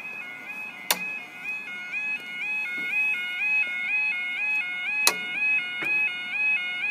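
UK level crossing yodel alarm: a two-tone electronic warble, alternating about three times a second and growing louder, warning that the barriers are lowering for an approaching train. Two sharp knocks come about a second in and about five seconds in.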